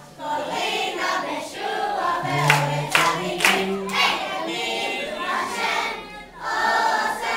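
A group of young children singing together. Three sharp hits come about half a second apart, roughly two and a half seconds in.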